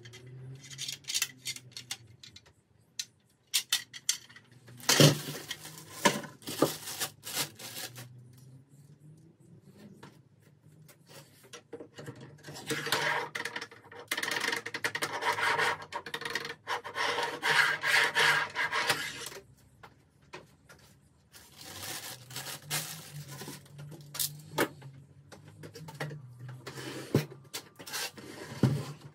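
Handling noise from unpacking a DeWalt DWE7485 table saw: irregular clicks, knocks and plastic-wrap crinkling in the first few seconds. Then a long stretch of metal-on-metal rubbing as the miter gauge is slid back and forth in its table slot, where it is a bit wobbly. Near the end come shorter bouts of rubbing and a few knocks as the saw is moved.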